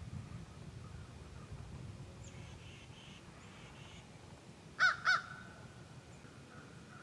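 A crow gives two short caws in quick succession about five seconds in, over a faint, low, steady background.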